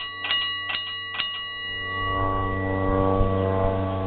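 8-inch brass engineer's signal bell struck several times in quick succession within the first second and a half, its tone ringing on and fading. A steady low horn-like tone sounds underneath and grows louder in the second half.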